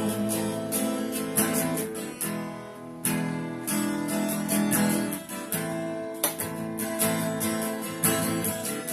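Acoustic guitar strumming chords in an instrumental passage of a song, with no voice, and the chord changing a few times.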